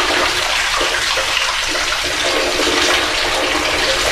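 Water pouring out of the rock and splashing down inside a tunnel, a steady loud splashing.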